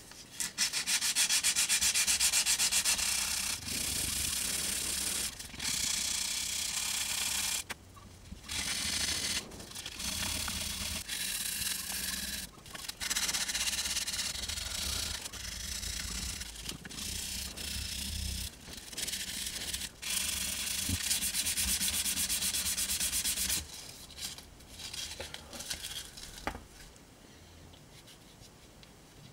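Folded sandpaper rubbed by hand along a steel knife blade, hand-sanding it in runs of back-and-forth strokes broken by short pauses. The sanding stops about 24 seconds in, leaving only a few light rubs and a click.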